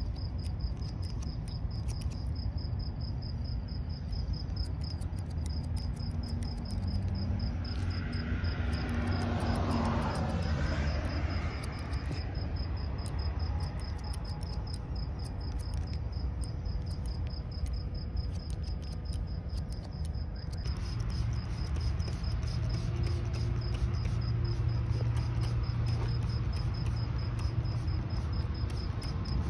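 Hair-cutting scissors snipping hair held over a comb, a run of short sharp clicks, over a steady high, rapidly pulsing insect trill and a low background rumble.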